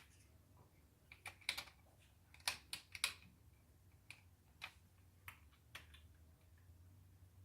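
Irregular small clicks and taps of a homemade driver bit and hands working the security screws out of a plastic hair dryer housing, with a cluster of sharper clicks about two to three seconds in and fainter ticks after.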